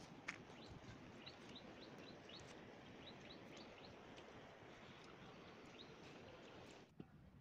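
Faint outdoor ambience with a small bird chirping over and over, short high notes coming several times a second, and one sharp click about a third of a second in. The background drops away suddenly about seven seconds in.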